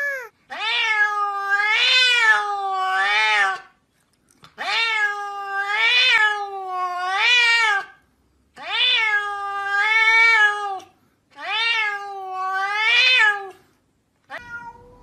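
Domestic cat meowing in long, drawn-out wavering calls: four bouts, each of two or three rising-and-falling swells, with short pauses between them, and a brief call near the end.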